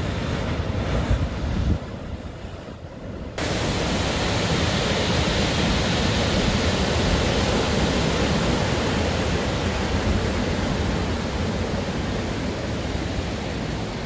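Ocean surf breaking and foam washing up the shore, a steady rushing noise. For the first three seconds or so it is rumbly and deep; then it switches abruptly to a louder, even hiss of foaming wash.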